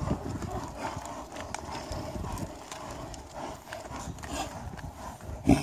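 Several yaks' hooves stepping and shuffling on dry, stony dirt, a patter of small irregular knocks and scuffs. Near the end comes one short, much louder thump.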